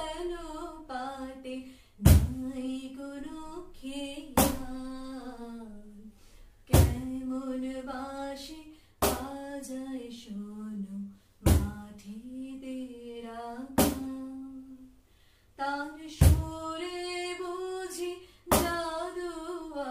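A woman singing a slow, unaccompanied melody with long held notes, while a sharp knock or clap keeps time about every two and a half seconds.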